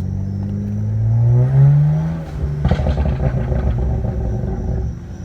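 BMW 335's inline-six revving up under acceleration, rising in pitch for about two seconds. Off the throttle, the exhaust then crackles and pops rapidly for a couple of seconds on overrun before settling to a steady run.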